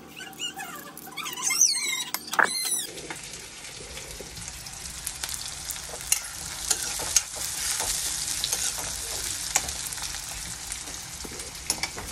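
Sliced onions sizzling as they fry in oil in a kadhai, with a slotted steel spatula scraping and clicking against the pan as they are stirred; the frying starts about three seconds in. Before it, a few high squeaky chirps and a knock.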